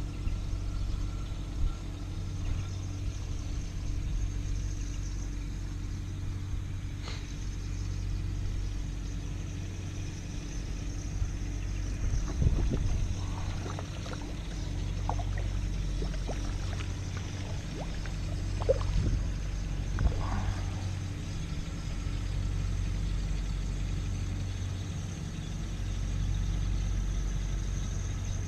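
A motor running steadily with a low, even hum. A few light knocks and clicks fall around the middle.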